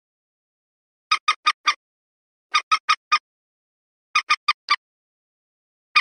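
Common moorhen calling: runs of four short, quick notes, one run about every second and a half, three runs in all with a fourth beginning near the end.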